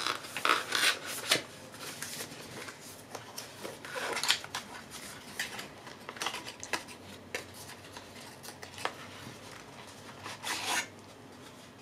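Cardboard packaging being handled and opened by hand: a box's inner tray sliding out, with irregular scrapes, rubs and paper rustles, and a louder scrape about four seconds in.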